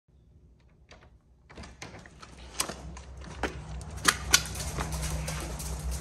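A sliding glass door opens about one and a half seconds in, letting in the outdoor sound, followed by a scatter of sharp clicks and knocks, the loudest two close together just after the fourth second.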